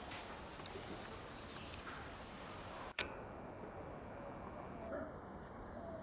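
Faint outdoor ambience: a steady hiss with a thin high steady tone and a few faint short chirps, broken by a single sharp click about three seconds in.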